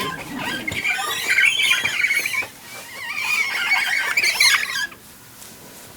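Rapid, high-pitched squeaking and squawking chatter that stops suddenly a little before the end.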